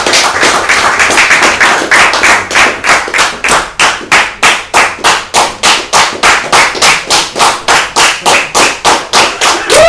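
Audience applauding. The dense clapping settles after a few seconds into an even rhythm of about four claps a second.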